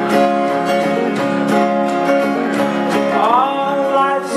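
A live acoustic band plays an instrumental passage of a bluegrass-style folk song, with strummed guitar and banjo keeping a steady rhythm. A sliding, bending note comes in about three seconds in.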